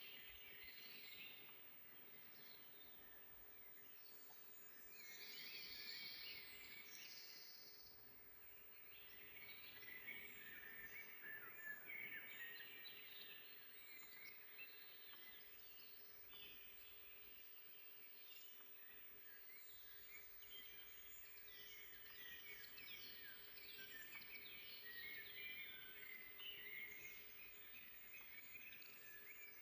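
Faint chorus of several songbirds chirping and trilling in a forest, the calls overlapping throughout.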